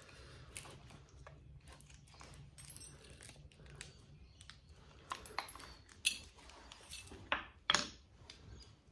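Small metallic clicks, scrapes and clinks of a screwdriver and copper wire as the copper windings are picked out of a light ballast's core, with a few sharper clicks in the second half.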